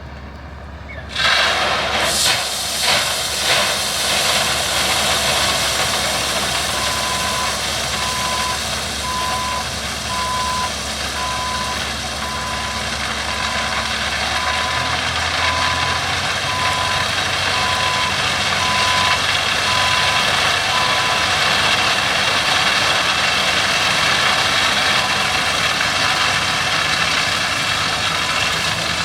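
Heavy diesel machine's engine rising sharply about a second in with a few surges, then running steadily under load, while its backup alarm beeps in an even pulse for much of the time.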